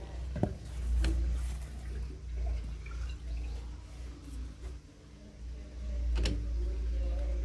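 LG TurboWonder top-load washing machine at the start of a spin-only cycle, its drum not yet spinning: a steady low hum with water draining. A few sharp knocks.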